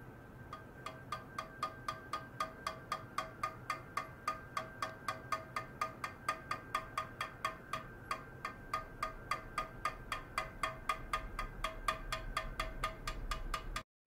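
Stainless steel tray tapped rapidly and evenly with a rod, about four light strikes a second, each ringing briefly with a metallic tone. The tapping cuts off suddenly just before the end.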